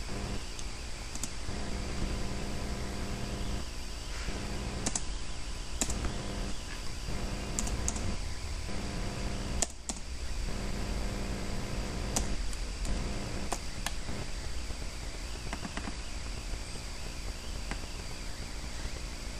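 Steady hum and hiss from a computer, with scattered sharp clicks of a computer mouse at irregular intervals.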